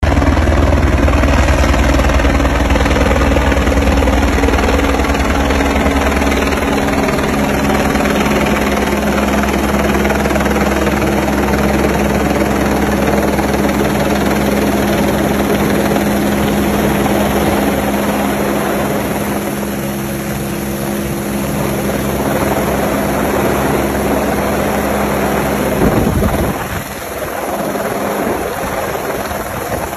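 Helicopter hovering low overhead, its rotor and turbine running loud and steady. Near the end the deepest rumble drops away and it gets a little quieter.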